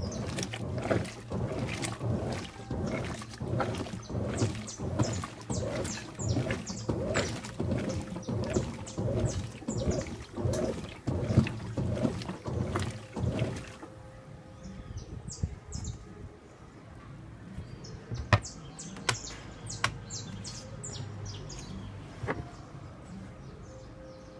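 Washing machine washing a load, with water and clothes sloshing in quick repeated strokes. About halfway through, the sloshing gives way to a quieter low hum with a few scattered clicks and splashes.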